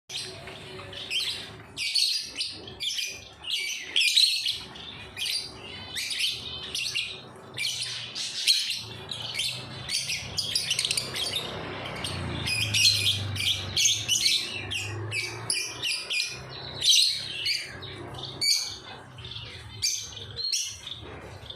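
Pet birds chirping and squawking, a dense run of short, high calls following one another without a break.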